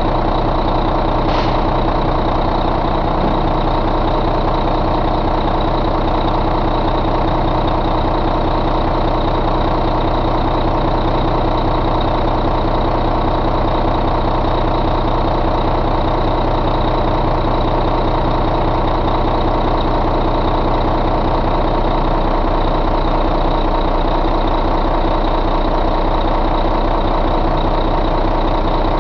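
Volvo D13 inline-six diesel engine idling steadily, heard close up with the hood open, with a thin steady high whine above the engine note.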